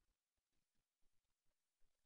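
Near silence: faint room tone with a few soft, brief taps.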